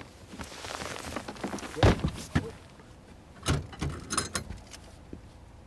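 Thumps and knocks of hurried footsteps and gear on an aluminium boat deck, the loudest about two seconds in, over a rustling hiss for the first two seconds, as an angler rushes to a rod with a fish on.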